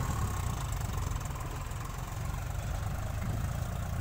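Diesel farm tractor engine running steadily with a low, even rumble as it hauls a loaded trolley away through mud.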